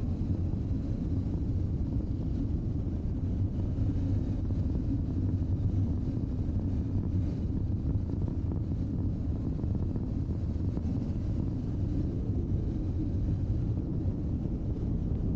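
Wind rushing over the microphone mixed with the steady drone of a BMW R1200GS boxer-twin engine riding at an even cruising speed, with no change in pace.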